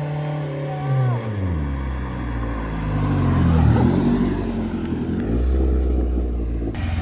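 Honda Prelude with its muffler cut off, driving past: the engine note drops sharply in pitch as it goes by, then revs climb again. The exhaust is loud and raw from the removed muffler.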